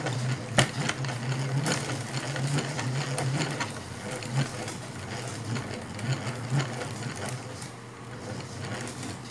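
Hand-cranked coil winding machine turning as copper magnet wire is wound onto an output transformer bobbin: a steady mechanical whirr with irregular clicks, softening after about four seconds.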